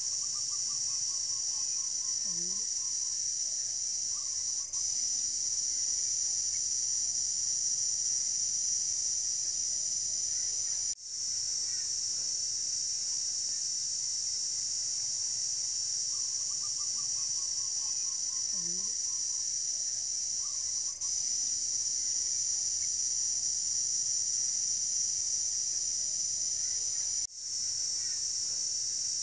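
A steady, high-pitched drone of insects calling. Twice, near the start and again about 16 seconds later, a bird gives a short run of descending notes, the same pattern both times.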